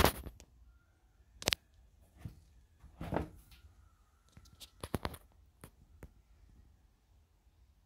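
Handling noise as a sneaker is moved about on a table: a handful of sharp clicks and taps, with a longer soft rustle about three seconds in.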